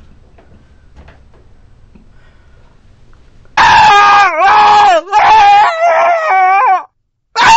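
A few faint knocks over quiet room sound. Then, about three and a half seconds in, a very loud, high-pitched wavering scream starts. It breaks off briefly a couple of times and cuts off abruptly, and a second burst starts near the end.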